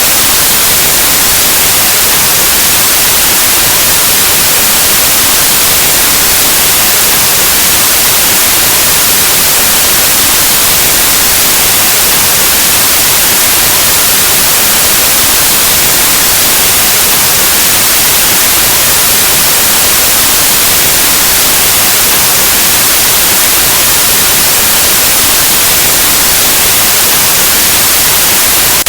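Steady, loud white noise: an even hiss like the static of an untuned analog television or radio, unchanging throughout.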